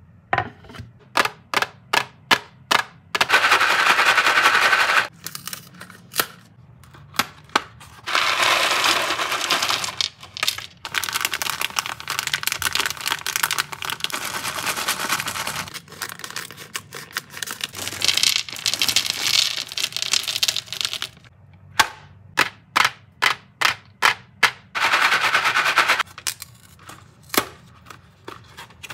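Candy packaging handled and opened and chewy candies tipped into a bamboo platter: runs of sharp clicks, several a second, alternate with stretches of crinkling and clattering lasting two to four seconds each.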